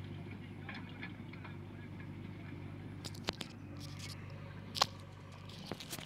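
JCB 3DX backhoe loader's diesel engine running steadily while the backhoe arm swings, with a few sharp knocks in the second half, the loudest about five seconds in.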